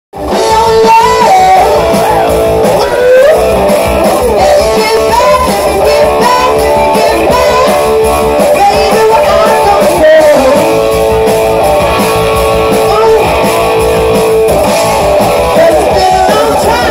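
Live rock band playing: a woman sings over electric guitar, bass guitar and drums, the music loud and steady throughout.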